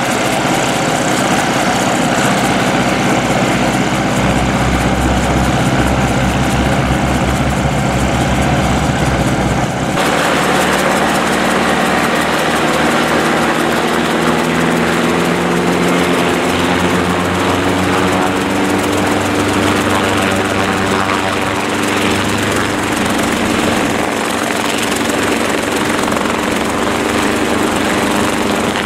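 Schweizer 300C light helicopter's piston engine and rotors running. The sound changes abruptly about ten seconds in, and the engine note then climbs slowly as it comes up to lift-off power. Near the end the helicopter rises into a low hover.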